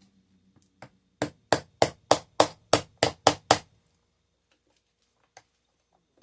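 Hammer beating on a homemade bus bar fitted to LiFePO4 battery cell terminals: nine sharp, even blows about three a second. The builder warns this is a good way to damage the batteries.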